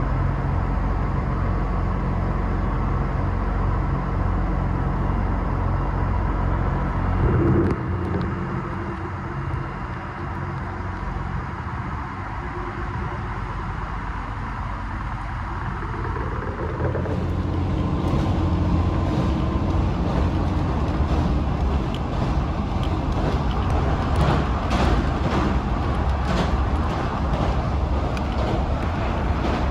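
Diesel railcar: a steady low engine hum, then a short knock about seven seconds in. From about seventeen seconds the train is running, with a louder rumble of engine and wheels on the rails and a run of rail-joint clicks.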